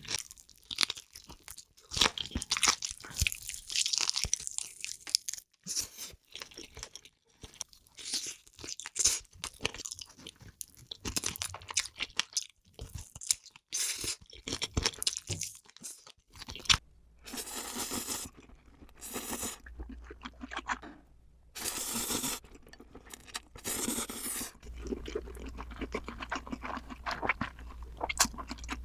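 Close-miked eating of spicy noodles: crunchy chewing and biting with dense short clicks. About two-thirds of the way through the sound changes, with a low steady hum under a few longer drawn-out mouth sounds.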